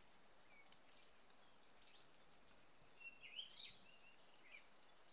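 Faint birdsong over a quiet steady hiss: scattered short chirps, with a quick run of rising and falling chirps about three seconds in.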